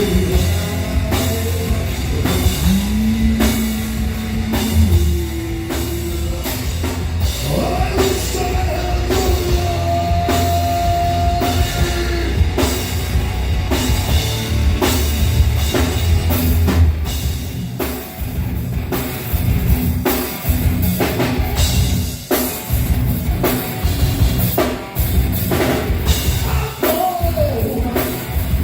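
Live heavy rock band playing loudly at a soundcheck: a pounding drum kit over heavy low end, with held notes and some singing. In the second half the drum hits come through choppier.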